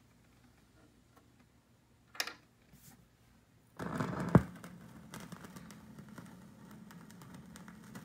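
Turntable cue lever flicked with a short click about two seconds in; about four seconds in the stylus touches down on the LP with a sharp click through the speakers, then the lead-in groove plays as fine crackle and hiss over a low hum.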